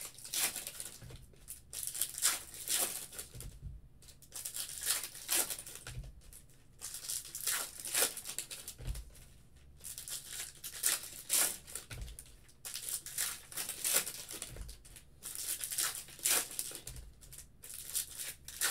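Foil trading-card pack wrappers being torn open and crinkled one after another in repeated rustling bursts, with a few soft knocks in between.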